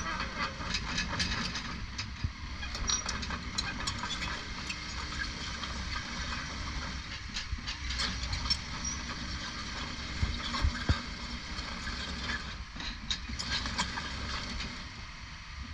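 Takeuchi TB2150R crawler excavator working as it slews and moves its boom and bucket: a steady low engine and hydraulic hum with a hiss, and many light metallic clicks and knocks.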